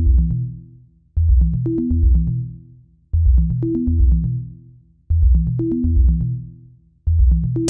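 Background electronic music: a bass and synth pattern with ticking percussion, repeating in phrases about two seconds long, each fading out before the next begins.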